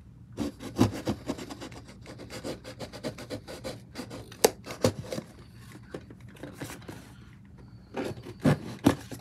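Scissors cutting open a cardboard box: a run of snips and scrapes of the blades working through the cardboard, with a few sharper snaps, the loudest near the middle and near the end, and a quieter stretch between.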